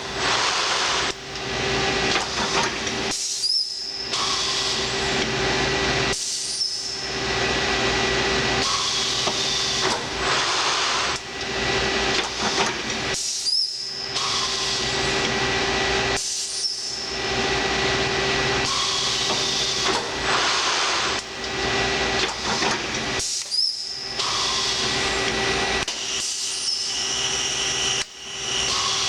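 Sencorp 2500 roll-fed thermoformer running through its cycles: a continuous hiss of compressed air over a steady machine hum. Brief dips and changes in the noise recur about every ten seconds as the air cylinders stroke.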